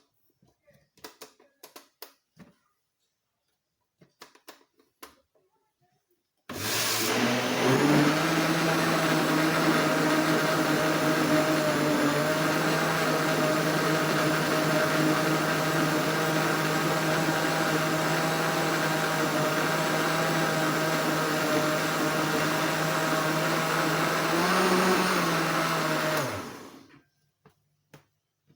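Electric blender blending a liquid lemon juice mixture for a second pass: a few light handling clicks, then the motor switches on about six seconds in and runs steadily for about twenty seconds with a steady hum, rises briefly in pitch just before it is switched off and winds down.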